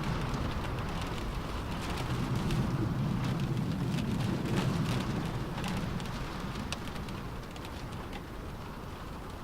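Rain falling on a car roof: scattered sharp drop hits over a steady low rumble, easing a little in the second half.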